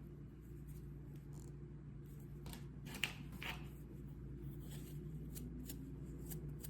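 A scatter of light clicks and ticks from small hard objects being handled, over a low steady hum; the sharpest click is about three seconds in.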